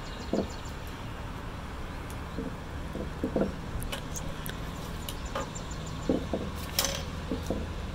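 Scissors cutting paper: a series of short, separate snips with uneven pauses between them, over a low steady hum.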